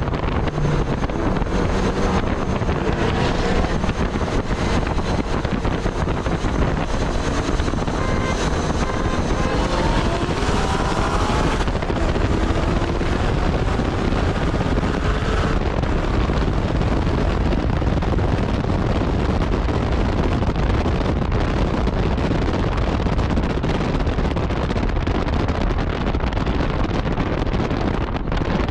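Car at highway speed heard from inside the cabin: a steady rush of wind and road noise, with the engine pulling up in pitch under hard acceleration between about 8 and 15 seconds in, then dropping away suddenly.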